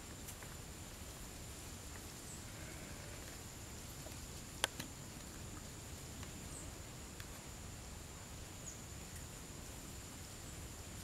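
Faint steady background noise with a thin, steady high-pitched whine, a few light ticks, and one sharp click about four and a half seconds in.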